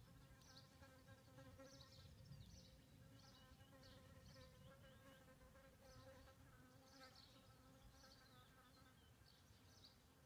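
A flying insect buzzing close by with a faint, steady hum that fades out near the end, while small birds give short high chirps in the background.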